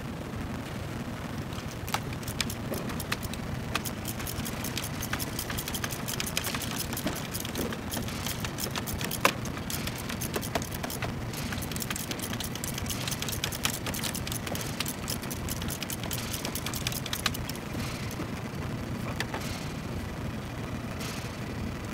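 Hand ratchet clicking rapidly and steadily as a bolt is backed out, over a steady low rumble. The clicking stops about three-quarters of the way through, with a few scattered clicks near the end.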